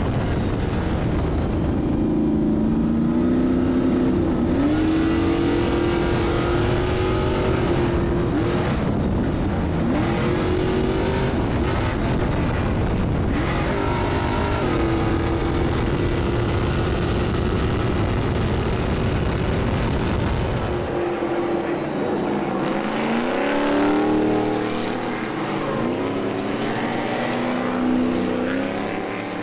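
Stadium Super Truck engine at racing speed, heard inside the cab, its pitch climbing and dropping with throttle and gear changes. Near the end it is heard from trackside instead: trucks coming down the straight, their engine notes rising and sweeping as they near.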